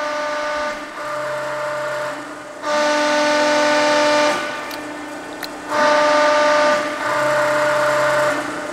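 Hydraulic pump and ram of a Cincinnati 230-ton CNC press brake whining as the machine is cycled through repeated strokes. The steady, whistle-like whine steps up in level and hiss twice, for a second or so each time, then drops back.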